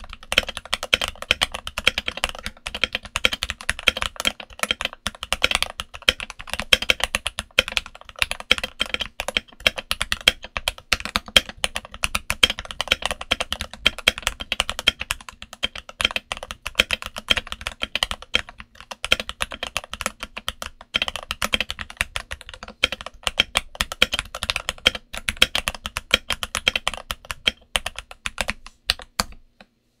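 Fast, continuous typing on a Redragon K530 mechanical keyboard with Gateron Milky Yellow linear switches and SA-profile ABS keycaps, modded with the Tempest mod, switch pads and felt: dense, uneven key clacks. The typing stops shortly before the end.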